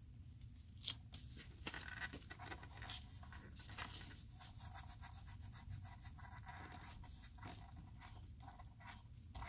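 Faint rubbing and scratching of paper and acetate under fingertips as a patterned acetate panel is pressed and smoothed onto a card, with a few light clicks.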